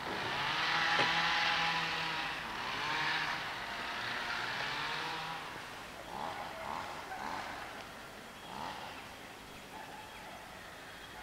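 A road vehicle passing close by, its tyre hiss and engine hum swelling to a peak about a second in and fading away over the next few seconds.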